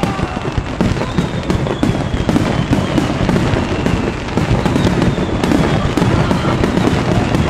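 Aerial firework shells bursting in quick succession in a fireworks finale: a dense run of bangs and crackles, with a few long whistles sliding slowly down in pitch.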